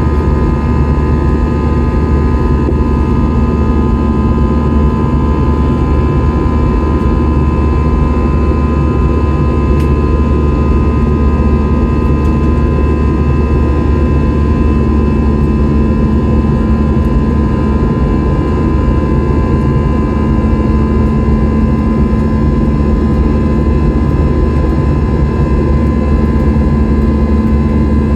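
Airliner jet engines heard from inside the passenger cabin: a loud, steady rumble with several steady whining tones held at an even pitch.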